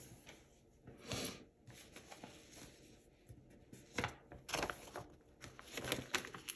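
Soft paper rustles and light taps from hands handling sticker sheets and pressing stickers onto planner pages. They come as a few short swishes, the clearest about a second in and around four seconds in.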